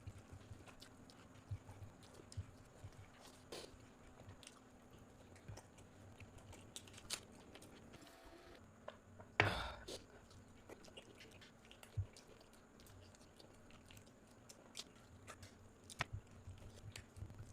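Close-up chewing and biting of food, with many small sharp clicks and crunches and one louder, longer noise about halfway through.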